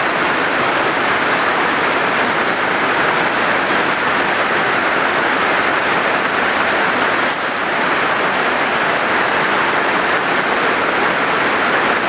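Steady loud factory machinery noise, with a few brief sharp clicks and a short hiss about seven seconds in.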